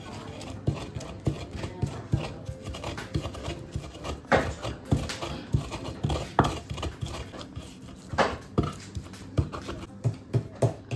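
Wooden pestle pounding charred green chillies and salt in a footed wooden mortar: a steady run of dull thuds, about two strokes a second, with a few harder strikes.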